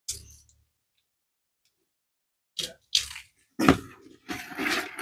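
Hands handling the parts of a string trimmer's recoil starter: a brief noise at the start, then, from about two and a half seconds in, a string of short scrapes and clicks of the plastic starter housing and metal parts being worked on.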